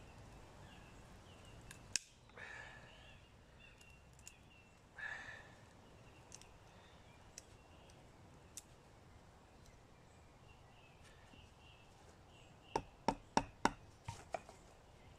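Knife tip being levered in a split in dry oak heartwood: a soft creak or scrape a couple of times, then a quick run of about six sharp cracks near the end as the wood fibres give under the prying.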